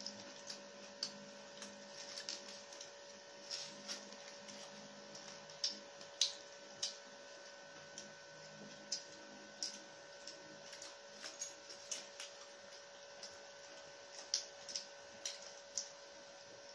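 Eating noises: irregular small clicks and crinkles of paper wrappers being peeled from egg rolls and plastic forks on plates, the sharpest about six seconds in. Under them runs a steady electrical hum.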